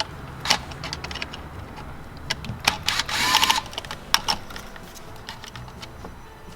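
A Torx screw being backed out of car console trim with a driver: scattered clicks and taps of the tool, with a short rattling burst about three seconds in.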